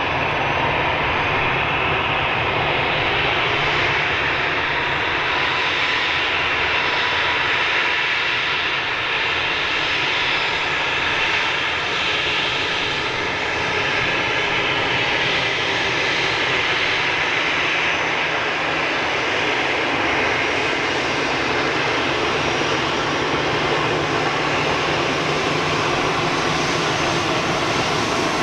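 Airbus A320 jet engines running steadily: an even, continuous rush of engine noise with a faint steady whine.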